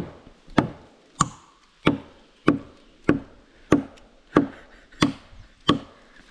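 Axe chopping wood: ten quick, evenly spaced strikes into timber, about one and a half a second.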